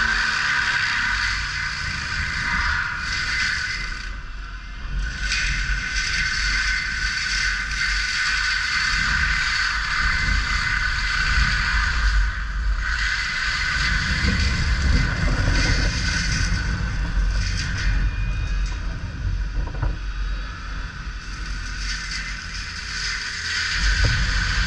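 CAT 299D3 compact track loader working: its diesel engine and hydraulics run steadily with a constant high whine over a low rumble.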